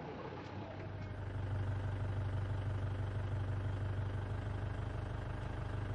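Safari vehicle's engine idling with a steady low hum, growing louder about a second in.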